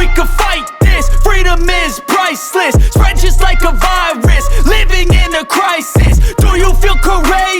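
Hip-hop music with a rapped vocal over deep bass hits that come about once a second.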